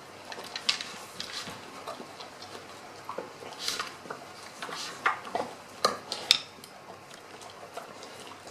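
A dog nosing and pawing at a homemade treat-puzzle toy, its hard parts clattering and knocking in a scattered, irregular series of clicks. The loudest knocks come about five to six seconds in.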